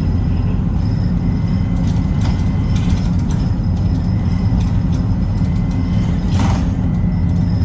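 City bus running along the road, heard from inside the cabin: a steady low engine and road rumble with light rattles, and a brief hiss about six and a half seconds in.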